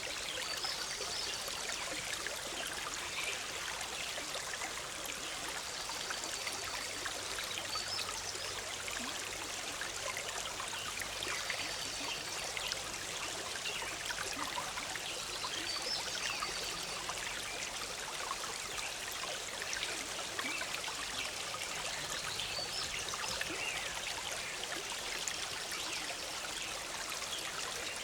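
Forest stream bubbling and trickling steadily over rocks, with a small bird giving short high chirps every few seconds.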